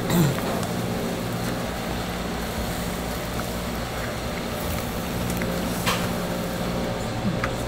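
Steady machine hum, with a few light clicks and knocks as whole fish are turned by hand on a wire grill over charcoal.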